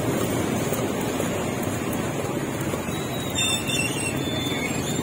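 Steady, low rumbling street background noise, like road traffic passing a market stall.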